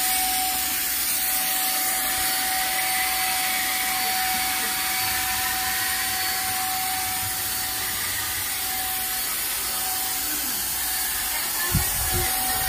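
Handheld electric paint spray gun running steadily while spraying paint: a constant motor whine over a rushing hiss of air and spray. A couple of short knocks come near the end.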